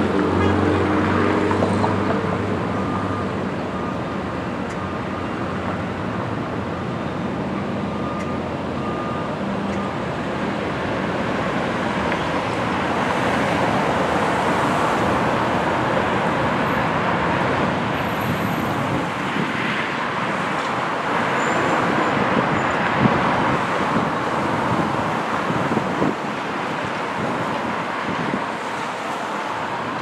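Steady city street traffic: passing cars and other vehicles making a continuous rush of road noise, with a vehicle engine humming close by for the first few seconds.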